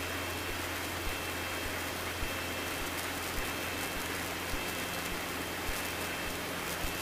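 Cessna 150's four-cylinder Continental O-200 engine and propeller running steadily at climb power, heard inside the cabin as an even, noisy drone.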